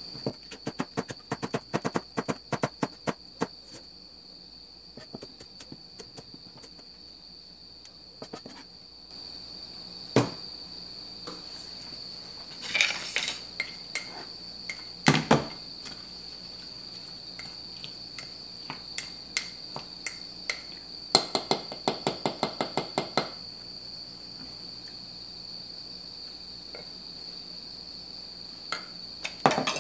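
Chef's knife chopping green onion on a plastic cutting board in a fast run of taps for the first few seconds, then scattered knocks and a quick run of taps from a wooden spoon stirring a soy sauce mixture in a small glass container. A steady high-pitched whine runs underneath.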